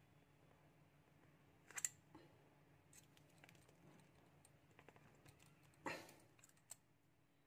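Small metallic clicks of needle-nose pliers gripping and bending a metal strip spot-welded to a lithium-ion cell, pulling on it to test the weld. Two louder clicks come about two seconds in and near six seconds, with fainter ticks between.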